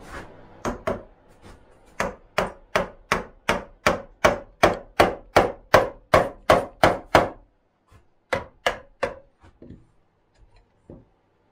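Wooden mallet striking a wood-handled chisel, chopping a mortise in a timber beam: a steady run of sharp knocks, about three a second, that stops about seven and a half seconds in, followed by three more blows and a few faint taps.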